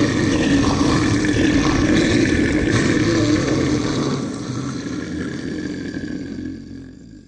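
Monster growl sound effect: one long, low, continuous growl that fades out over the last three seconds.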